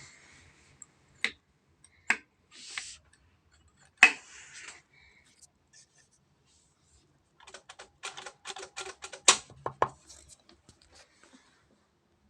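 Mechanical clicking from a sewing machine being worked: a few separate clicks, then, after a pause, a couple of seconds of rapid, even clatter with one louder knock.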